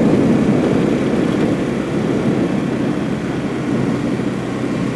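Steady low rumble of a moving car, engine and tyres heard from inside the cabin.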